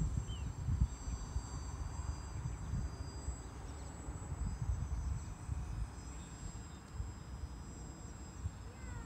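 Wind buffeting the microphone in uneven gusts, over the faint, steady high whine of a small RC model plane's electric motor and propeller flying at a distance.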